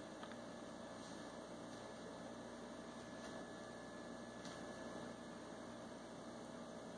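Quiet room tone with a faint, steady electrical hum.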